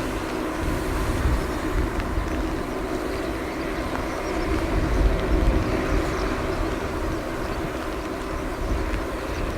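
Four Allison T56 turboprop engines of a Lockheed UP-3C Orion running steadily, a constant drone with a held tone over a gusty low rumble.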